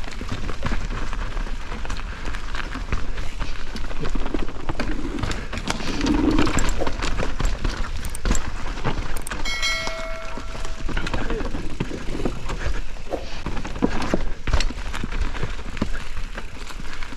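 Mountain bike riding over rough singletrack: a continuous clatter of chain, suspension and tyres over roots and bumps, with wind rumbling on the microphone. About ten seconds in, a brief high steady tone sounds for a second or so.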